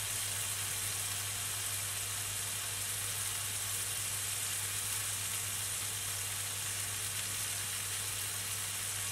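Veal steaks sizzling steadily in olive oil on a very hot ridged grill pan: an even hiss with a steady low hum underneath.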